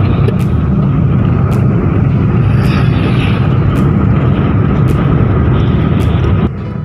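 Steady wind, road and engine noise inside the cabin of a moving Suzuki car. The level drops suddenly near the end.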